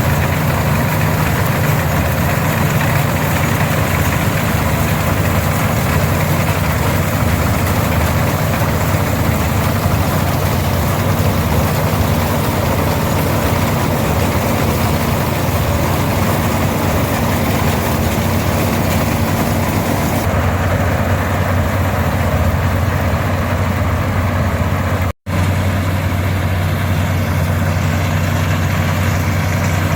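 Farmall 460 tractor's 282 diesel engine running steadily under load, with the PTO-driven International 82 pull-type combine threshing behind it. The sound cuts out for an instant about 25 seconds in.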